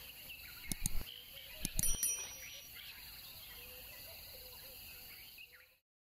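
Outdoor ambience of insects chirring steadily, with birds calling faintly over it. There are a couple of sharp knocks about a second in and again near two seconds, the second with a brief high ringing note. The sound cuts off suddenly near the end.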